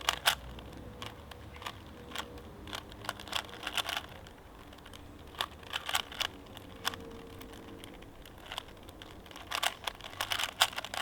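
Rubik's cube being solved fast: plastic layers turning with rapid irregular clicking, in bursts between short pauses.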